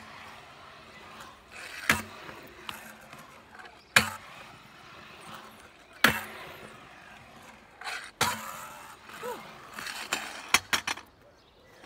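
Stunt scooter's small hard wheels rolling over concrete ramps, with a sharp clack of the deck and wheels hitting the concrete about every two seconds and a quick run of clacks near the end.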